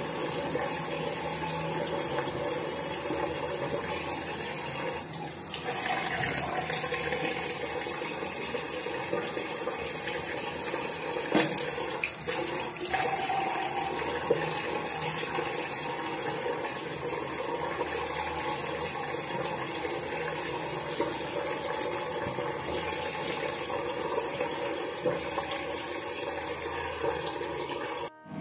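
Water running steadily from a tap in a tiled bathroom, an even hiss with a few brief knocks, cutting off suddenly at the end.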